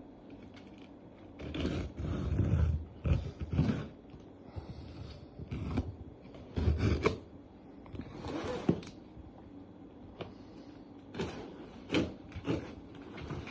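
Packaging of a car taillight being handled and opened: irregular rustling and scraping with a few low thumps, loudest in the first few seconds, then shorter knocks and clicks near the end.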